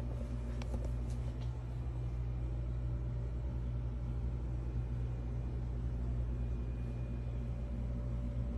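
Steady low mechanical hum, like a motor or fan running, unchanging throughout, with a few faint clicks in the first second and a half.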